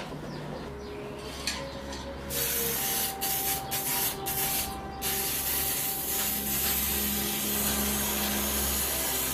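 An aerosol spray-paint can hissing: a few short bursts starting about two seconds in, then one continuous spray from about halfway through. Faint scraping comes before the spraying.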